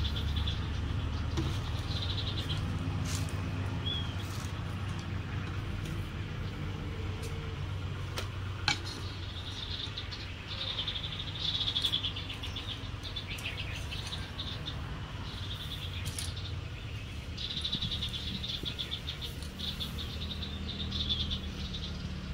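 Outdoor ambience: high, buzzy trilling calls in repeated bursts over a steady low rumble, with one sharp click about nine seconds in.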